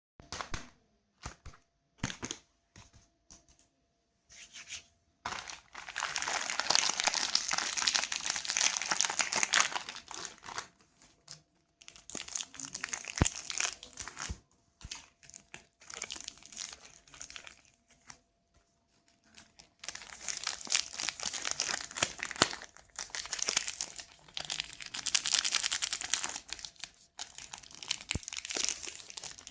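Chocolate bar wrappers being crinkled and torn open by hand, in long stretches of rustling with short quiet pauses and a few sharp clicks between.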